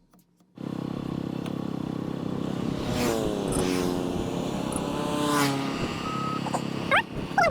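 Car engine running and revving, starting suddenly about half a second in, its pitch rising and falling several times, with short high squeals near the end.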